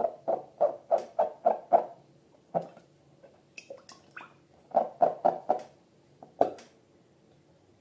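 Slime being squished and handled, making a quick run of short squelches about three a second, then a pause, then a second run of four and a last single squelch.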